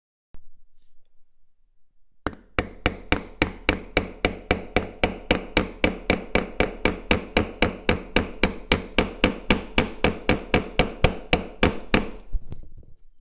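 A bench chisel struck over and over in quick, even blows, about four a second for some ten seconds, chopping out the waste between dovetails. The strikes begin about two seconds in and stop shortly before the end.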